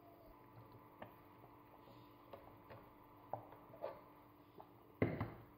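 Stirring thick wheat porridge with a silicone spatula in a stainless steel pot: faint, scattered soft clicks and taps, then one louder clunk of the pot near the end.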